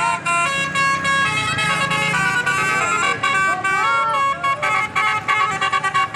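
Bus's Basuri telolet horn playing a melody: a run of quick stepped notes that goes on without a break.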